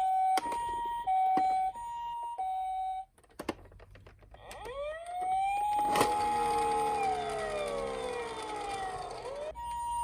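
Toy emergency-vehicle sirens. A two-tone hi-lo ambulance siren alternates about once a second and cuts off about three seconds in. After a short pause a wailing siren rises, holds and slowly falls, and the hi-lo siren returns near the end.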